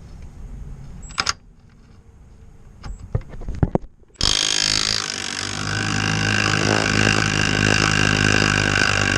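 Milwaukee stubby impact wrench hammering in reverse on a seized shock bolt: a few small clicks as it is fitted, then about a second after the halfway point it starts, running at full hammer for about five seconds.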